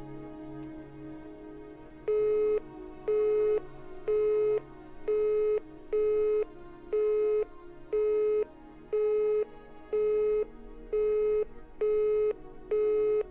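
Telephone busy tone heard through a mobile phone: a single pitched beep repeating about once a second, each about half a second long, starting about two seconds in, while the call does not get through. Soft sustained music plays underneath.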